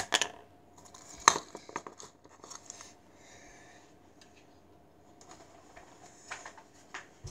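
Plastic clicks and rattles of a Nerf blaster being worked by hand to clear a jammed dart, with sharp clicks at the start and about a second in, and smaller scattered clicks after.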